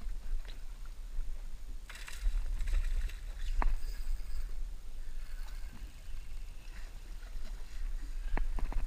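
Water splashing and sloshing around a small boat, over a steady low rumble, with a burst of splashing about two seconds in. A single sharp click comes about three and a half seconds in, and a few ticks near the end.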